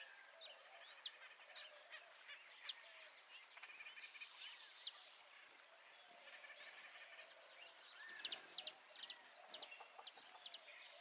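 Faint birds chirping, with scattered short sharp calls. About eight seconds in, an insect starts a louder, high-pitched pulsing trill that keeps going.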